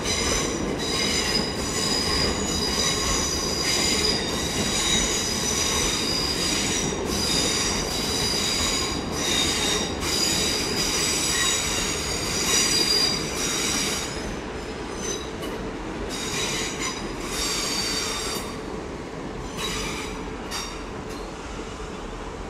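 Electric multiple unit rolling slowly over curved pointwork, its wheels squealing in high, shifting tones over a low rumble of wheels on rail. The squeal fades after about fourteen seconds, leaving a few short squeals and the rumble.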